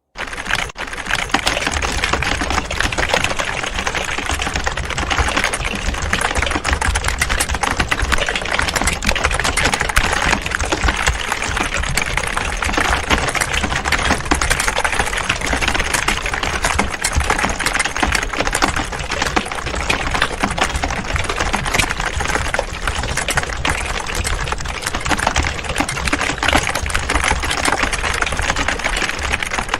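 Many people typing at once on computer keyboards: a steady, dense clatter of overlapping key clicks.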